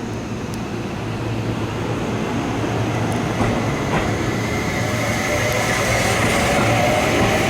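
Seibu Shinjuku Line electric train approaching, its rumble and rail noise growing steadily louder, with several whining tones from the train coming in over the second half.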